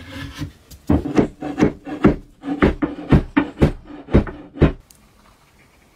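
About a dozen sharp knocks, roughly two a second, as the wooden handle is driven into the eye of the steel hammer head, each knock followed by a short ringing note. The knocking stops near the end.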